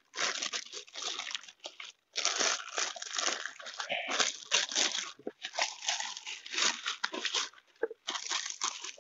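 Thin clear plastic bag crinkling and rustling as hands pull it off a boxed power planer, in irregular bursts with short pauses.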